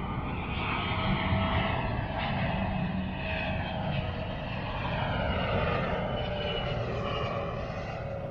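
Twin-engine jet airliner flying low overhead, its engine noise steady and loud, with a tone that seems to sweep slowly up and down as it passes.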